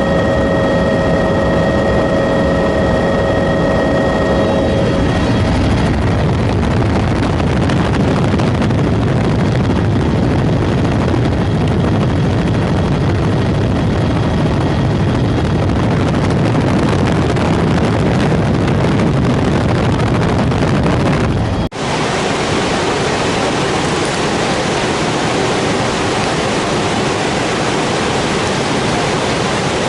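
A helicopter's steady whine over loud rushing noise, the whine dying away about five seconds in. About two-thirds through, a sudden cut to the steady roar of a large waterfall.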